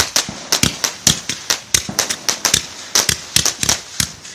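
Fireworks finale: a rapid, irregular series of sharp bangs and pops, several a second, with no let-up.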